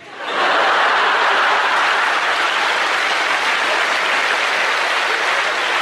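Large studio audience applauding and laughing in response to a punchline, breaking out a moment in and holding at a steady, even level.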